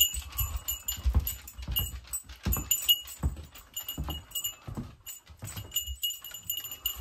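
Footsteps thudding across a trailer's floor, roughly two steps a second, with light high metallic jingling between them.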